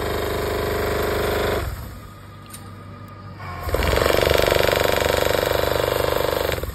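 Olive harvesting machine running: a fast, rattling hammering from the pole-mounted beater working in the branches, over the steady hum of the machine's motor. The beating stops under two seconds in and starts again, louder, near four seconds in.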